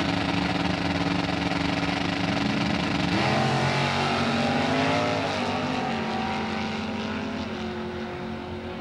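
Two drag-racing cars' engines held at steady revs on the starting line, then launching about three seconds in. The engine pitch climbs, drops back with each gear shift and climbs again, and the sound fades as the cars pull away down the strip.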